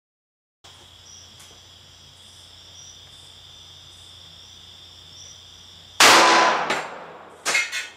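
Insects calling steadily, then one loud pistol shot about six seconds in: a .45 ACP +P round fired from a Colt 1911, dying away over about a second. A few sharp clicks follow near the end.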